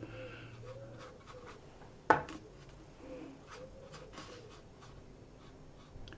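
Soft strokes of a watercolour brush laying a wet wash across textured watercolour paper, with a single sharp click about two seconds in.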